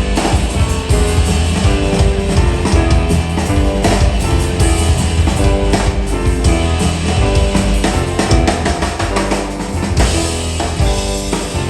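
Jazz piano trio playing: piano, plucked double bass and drum kit, with a busy bass line and frequent cymbal strokes.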